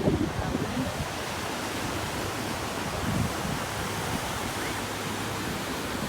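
Steady rush of ocean surf, with wind buffeting the microphone in a few low gusts near the start and about three seconds in.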